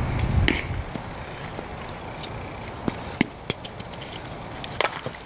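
A softball smacks into a first baseman's leather glove about half a second in, with a low rumble that dies away within the first second. A few faint, sharp clicks follow later on.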